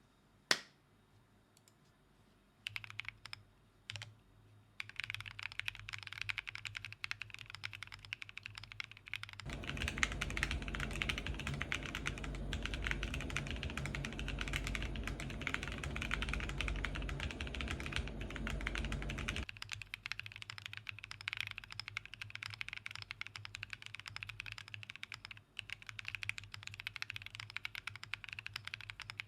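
Typing on a Dolice mechanical keyboard with Holy boba tactile switches on a PC plate, Hyperfuse and GMK Taro keycaps and Taro spacebar. A single keystroke click, a few scattered presses, then a fast continuous run of keystrokes from about five seconds in, with a low rumble underneath for about ten seconds in the middle.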